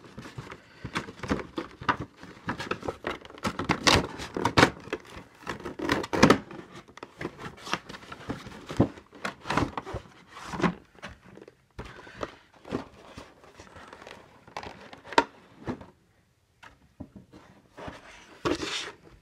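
Cardboard collector box and its clear plastic blister tray being handled and opened by hand: irregular rustling and crinkling of packaging, with scattered sharper knocks and taps.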